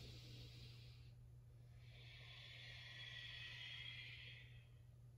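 Faint breathing, one breath trailing off about a second in, then a longer, airy breath from about two seconds to four and a half, paced with a cat-cow spinal flow on hands and knees.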